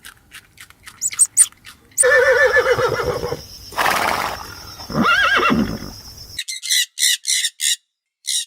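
Horse whinnying: a loud wavering neigh, a snort, then a shorter whinny. From about six seconds in, a chicken gives short squawking calls, about three a second.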